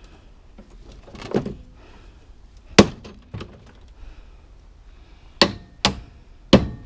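Hammer blows: a softer knock, then a single loud strike about three seconds in, then three sharp strikes in quick succession near the end.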